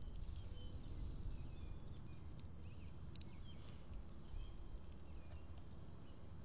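Small birds at a backyard feeder, chirping faintly in short scattered calls, with a few light clicks over a steady low rumble.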